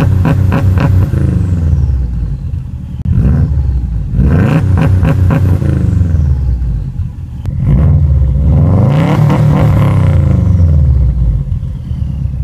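Subaru Impreza WRX's turbocharged flat-four engine revved through its single-tip exhaust: engine speed climbs and falls back three times, the last rev about eight seconds in the longest.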